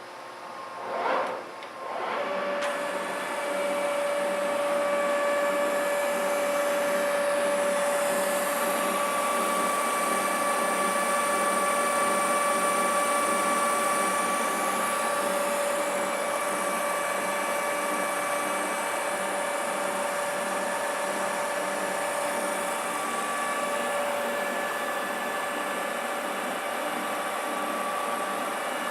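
TOS metal lathe starting up about two seconds in, then running steadily with a constant whine.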